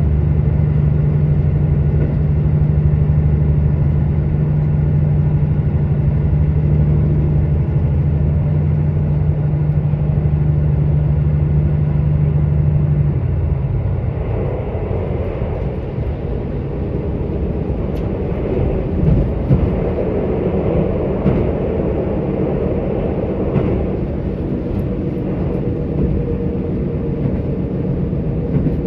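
KiHa 85 diesel railcar's Cummins diesel engine droning steadily under power, heard from aboard. About halfway through, the engine throttles back and its drone drops out, leaving the rumble of the wheels on the rails and a few sharp clicks from the track as the train coasts.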